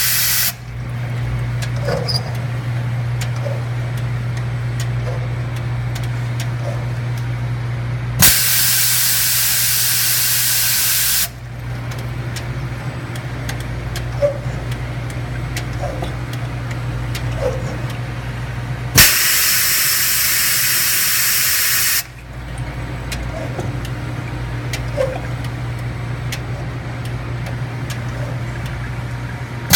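Multi-format container washing machine running with a steady low hum and light clicks, broken twice by loud hissing spray bursts of about three seconds each. The first comes about eight seconds in, the second about nineteen seconds in; each starts with a thump and cuts off sharply.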